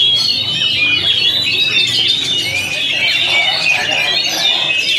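Several oriental magpie-robins singing at once: a dense, unbroken tangle of quick, varied whistles and chatter.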